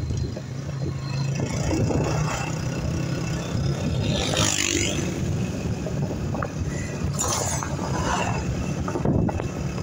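Honda CG 125's single-cylinder four-stroke engine running on the move, under a steady rush of road noise. A Suzuki van passes close going the other way near the end, with a swell of noise.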